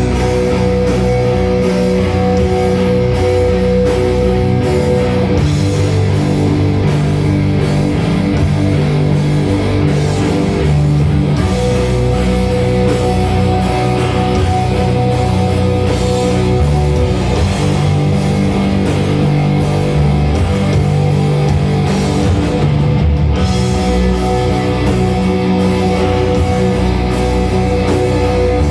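Live heavy metal band playing: distorted electric guitars with drums and cymbals in a dense, continuous wall of sound, with a long held melody note over it.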